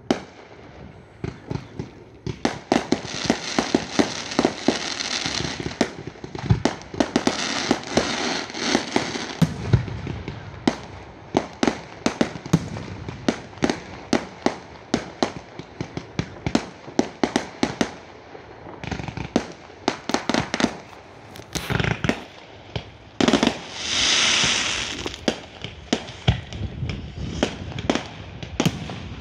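Fireworks going off: a rapid, irregular run of sharp bangs and crackles, with stretches of dense crackling hiss. Late on there is one louder hissing swell lasting about a second and a half.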